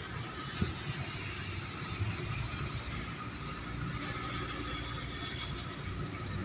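Radio-controlled CN-235 scale model plane flying at a distance, its motors giving a faint steady whine, with wind rumbling and buffeting on the microphone.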